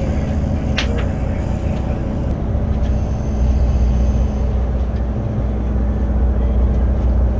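Sportfishing boat's engines running with a steady low drone, growing a little louder about three and a half seconds in.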